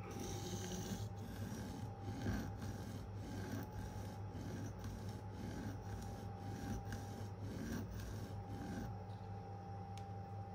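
Steel knife blade (K390) scraping back and forth on a 400-grit diamond sharpening plate in a steady rhythm of about two strokes a second, stopping about nine seconds in. It is grinding away the unsharpened ricasso to extend the edge. A faint steady hum runs underneath.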